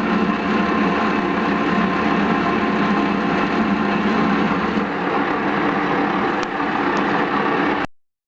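Metal lathe running steadily while turning a small metal end cover: a constant motor hum and whine with cutting noise. It cuts off abruptly near the end.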